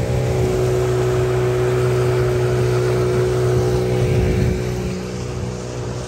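Small motorboat's engine running steadily at speed, with water and wind noise; the engine note dips a little in level about four and a half seconds in.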